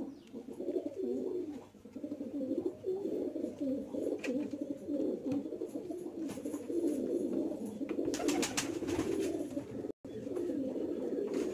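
Domestic pigeons cooing continuously, a low wavering murmur, with a few light clicks around eight seconds in.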